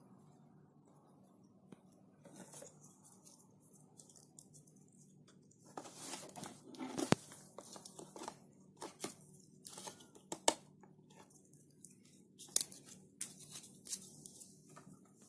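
Dry tree bark pieces being rummaged through in a cardboard box and handled, making irregular scratchy rustles and scrapes with a few sharp clicks, starting about five seconds in.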